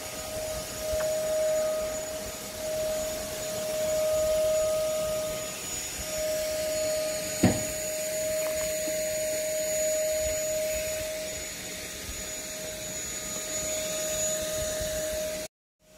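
A steady motor drone with a constant whine through it, and a single knock about seven and a half seconds in; it cuts off abruptly just before the end.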